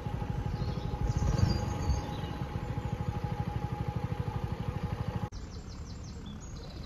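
Narrowboat diesel engine running at low revs with a rapid, even chugging and a steady hum over it, while birds chirp. The engine sound cuts off suddenly about five seconds in, leaving birdsong.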